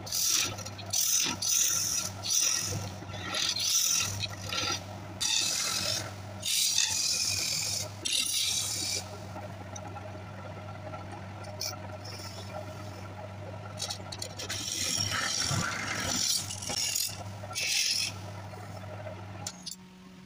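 A hand-held chisel scrapes and cuts into the hollow of a wooden mortar spinning on a lathe, in repeated rasping strokes over the steady hum of the lathe's electric motor. The cutting comes in a busy run, eases off midway and picks up again later, and the motor hum stops shortly before the end.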